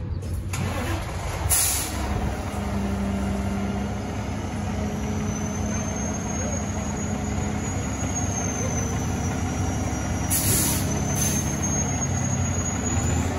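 Fire engine's diesel engine idling steadily, with short air hisses from its air brakes a couple of seconds in and twice more close together near the end.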